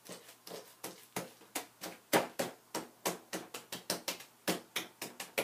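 Bare hands patting and pressing wet, soapy wool roving on a rubber mesh mat, a quick run of soft wet pats about four or five a second, louder from about two seconds in. This is the early wet-felting stage, working soapy water into the fibres so they begin to adhere.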